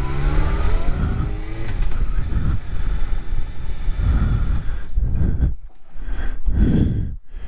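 Suzuki GSX-R 750 K4 inline-four motorcycle engine running under heavy wind noise. The engine note glides in pitch for the first second or two, then wind and road noise take over, coming and going unevenly near the end.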